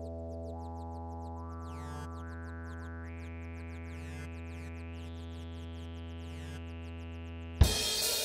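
Synthesizer music: a sustained low synth drone and chord with notes stepping upward, then near the end a loud hit as a drum kit with cymbals comes in.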